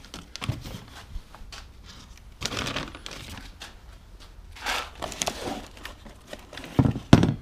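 Gloved hands rummaging through cardboard boxes of hardware: cardboard rustling and scraping in scattered bursts, then two loud knocks near the end as a box of metal strap hinges is pulled out.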